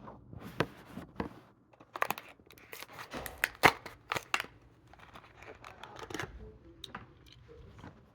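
Hot Wheels blister-card package being opened by hand: cardboard tearing and plastic crinkling, with a run of sharp snaps and clicks that thins out toward the end.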